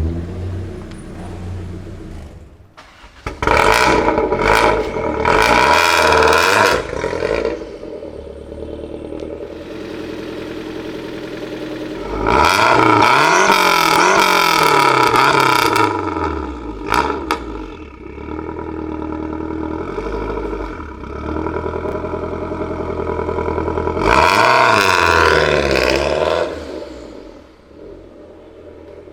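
A high-performance car engine idling and revved hard three times. The first is a quick string of blips about three seconds in, the second a longer rev that climbs and falls about twelve seconds in, and the third comes near the end.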